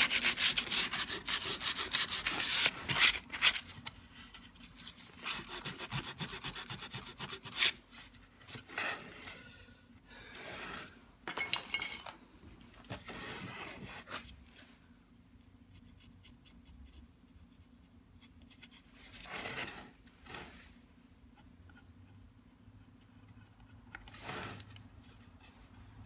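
Hand tools working the surface of a carved relief plaque: quick rasping, scraping strokes for the first several seconds, then scattered scrapes and brushing with quiet stretches between.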